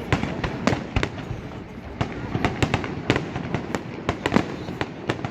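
Aerial fireworks bursting: a rapid, irregular run of sharp bangs and cracks, about fifteen in a few seconds.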